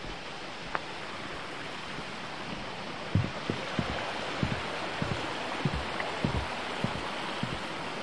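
Footsteps thudding on a wooden boardwalk from about three seconds in, about two a second, over a steady rush of stream water. There is a single sharp tick just under a second in.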